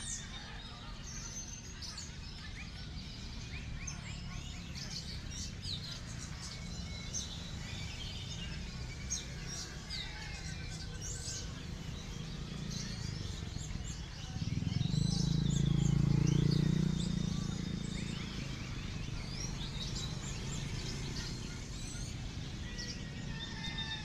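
Many songbirds chirping and trilling over one another, against a steady low background rumble. A louder low rumble swells for a few seconds about two-thirds of the way through.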